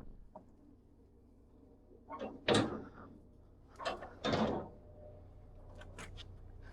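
Short, clattering knocks of gear being handled inside an enclosed car-hauler trailer: a light tap and then a louder rattle about two and a half seconds in, and another pair around four seconds in.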